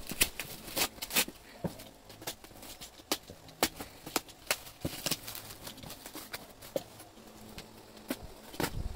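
Plastic wrap and packing tape crinkling and ripping as they are cut with a utility knife and pulled off a cardboard box, in irregular sharp crackles.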